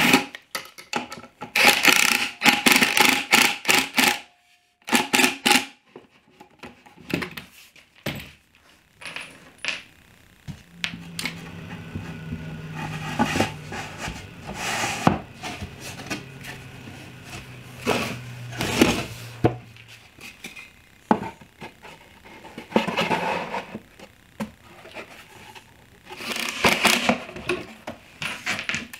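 Pine boards knocked, slid and scraped against each other on a wooden workbench, with a cordless impact driver running in the middle for several seconds, driving screws into the drawer box.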